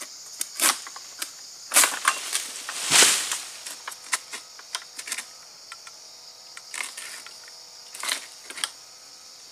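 An egrek, a long-pole sickle, hooking and hacking at the fibrous base of an oil palm frond and fruit bunch. It makes a series of sharp cracks and snaps, the loudest about three seconds in, over a steady high drone of insects.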